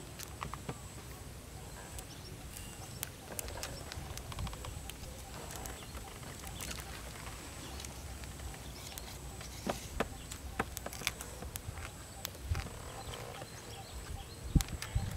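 Scattered small clicks and rustles of hands handling leafy greens and food in a bowl, over a low rumble and a faint steady high tone, with a few louder low thumps near the end.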